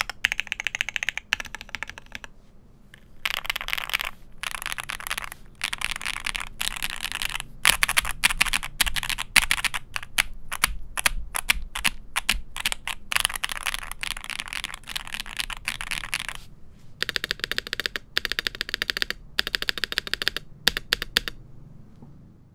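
Fast typing on an Owlab Jelly Epoch mechanical keyboard with factory-lubed Akko V3 Cream Black Pro linear switches, an aluminum plate and GMK keycaps. The keystrokes come in quick runs, with brief pauses about two seconds in and again after sixteen seconds, and stop near the end.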